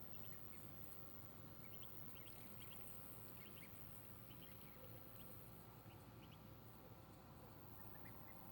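Faint, short high-pitched peeps of a Muscovy duckling, coming in quick clusters of two or three every second or so.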